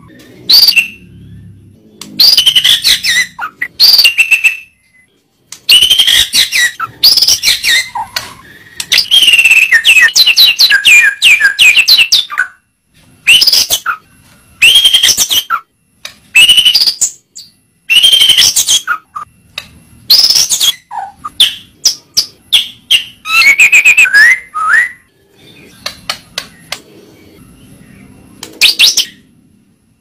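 White-rumped shama (murai batu) singing: loud, fast phrases of whistles and trills, each lasting one to several seconds, broken by short pauses.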